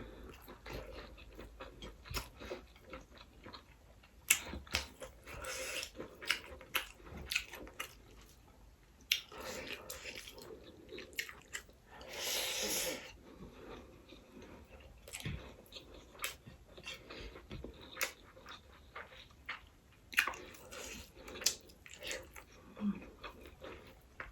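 Close-miked chewing and biting of sausage, mushroom and egg fried rice: many short, sharp clicks and small wet bursts, with one longer hissing noise about twelve seconds in.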